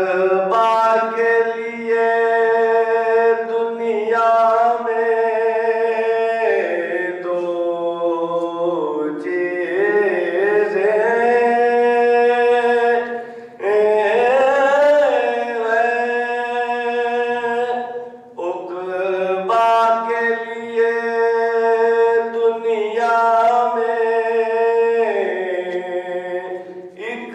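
A man's solo voice chanting unaccompanied, with long held notes that slide slowly up and down between short breath pauses.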